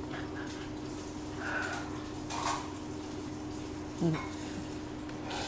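Room background with a steady low hum and hiss, a couple of faint soft rustles, and a brief murmur about four seconds in.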